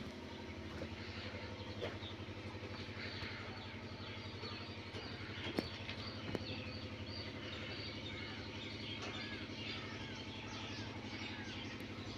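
Engine idling steadily with an even, rapid chug, while birds chirp repeatedly over it.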